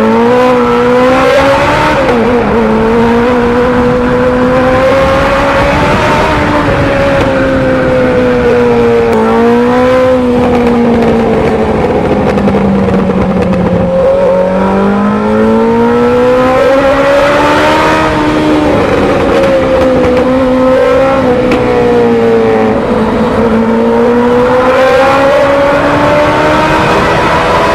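Motorcycle engine and exhaust running under way, loud and steady, its pitch rising and falling slowly several times as engine speed changes.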